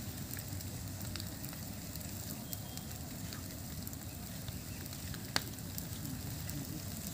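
Wood-and-bamboo funeral pyre burning, with a steady rush of flame and a few scattered sharp crackles. The loudest crackle comes about five seconds in.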